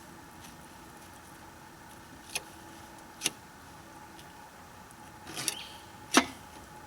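Knife working a fillet off a catfish along the rib cage: about four short sharp clicks and snaps, the loudest near the end, over a faint steady hum.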